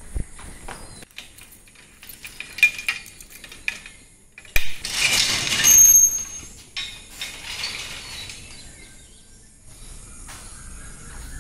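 A metal gate or grille being unlatched and opened: clicks and metallic clinks, then a loud scraping clatter with a ringing edge lasting about a second and a half, about five seconds in.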